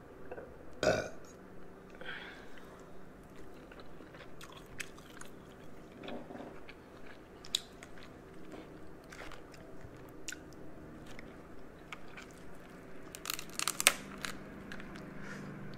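Close-up chewing and mouth sounds of someone eating crab legs, soft and regular, with a sharp snap about a second in. Near the end comes a loud burst of cracking as a crab leg's shell is broken apart by hand.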